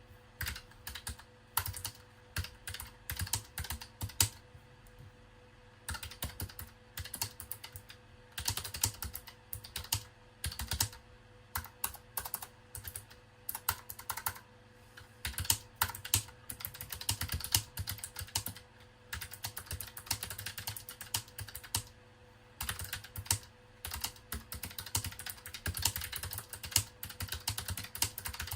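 Typing on a Keychron K1 low-profile mechanical keyboard with tactile, clicky switches: runs of quick keystrokes broken by short pauses.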